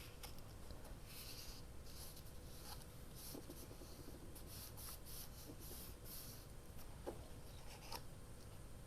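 Faint rubbing and swishing strokes on paper, with a few light taps, as a piece of paper is glued and pressed down onto a paper journal tag.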